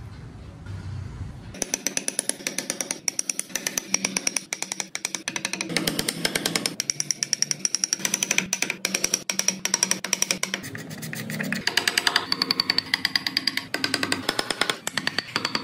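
Wood being worked with a carving tool: a rapid, steady run of sharp taps that starts suddenly about a second and a half in, after a low hum.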